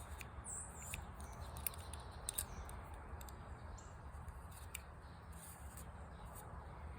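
Faint rubbing and handling as a marker is run along the bevel of a steel broadhead blade, with a few light clicks.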